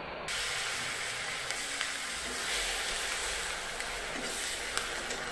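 Chopped tomatoes sizzling in hot mustard oil and spice paste in a wok, the sizzle jumping louder just after the start. A few sharp clicks come from the spatula stirring against the pan.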